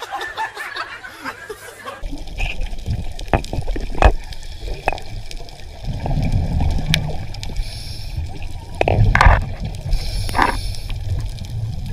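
Muffled underwater sound: a low sloshing rumble with scattered sharp clicks and a few short bubbling gurgles.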